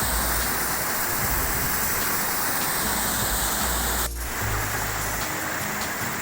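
Waterfall rushing steadily, an even roar of falling water, with a brief break about four seconds in before it continues slightly quieter.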